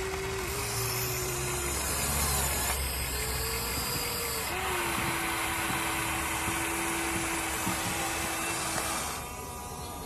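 Electric motors of a Huina 1:14-scale RC excavator whining steadily as it works the arm and bucket in sand. The pitch rises a little for a couple of seconds, settles back, and the whine stops about a second before the end.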